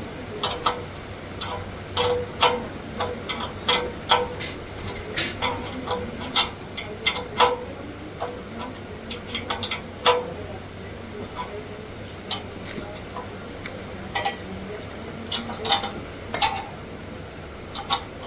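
Irregular clicks and knocks, several with a short metallic ring, from metal parts and tools being handled while an industrial sewing machine stand is assembled.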